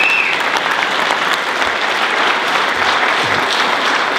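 Theatre audience applauding steadily, a dense, even clapping. A high whistle from the crowd ends just after the start.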